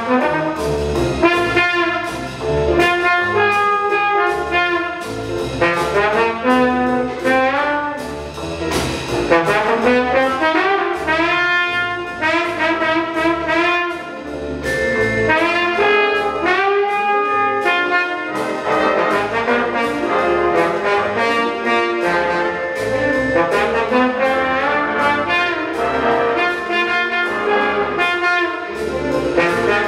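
Jazz big band playing, its trombones and trumpets carrying the lines over the rhythm section.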